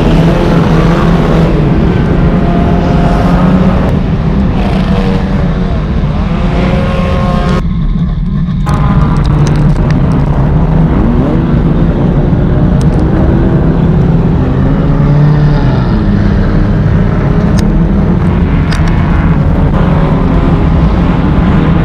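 Race car engine running hard in an enduro race, its pitch rising and falling as it accelerates and lets off, over a steady low drone of road and drivetrain noise. A couple of sharp knocks come past halfway.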